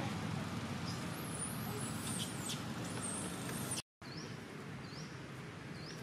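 Steady outdoor background noise with a few high whistling calls, cut off by a moment of silence about four seconds in; after it, a short high rising chirp repeats about once a second over the background.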